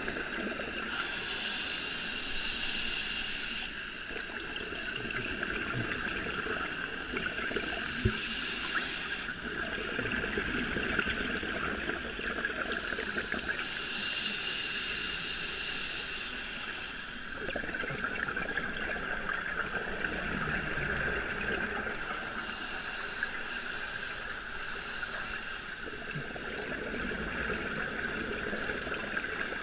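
Scuba diver breathing through a regulator, heard underwater: bursts of exhaled bubbles lasting two to three seconds each, coming about every six to eight seconds over a steady underwater hiss.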